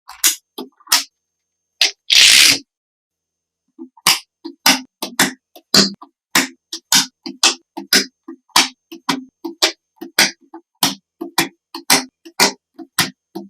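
A run of sharp clicks and taps, about two a second, with one short louder rushing hiss about two seconds in.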